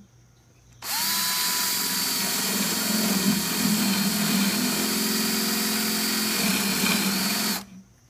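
Milwaukee cordless drill boring a hole into the wooden side board of a beehive. It starts suddenly about a second in, runs steadily for nearly seven seconds, then stops.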